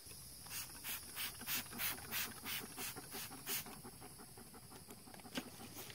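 Greyhound panting, about three quick breaths a second, easing off after about three and a half seconds.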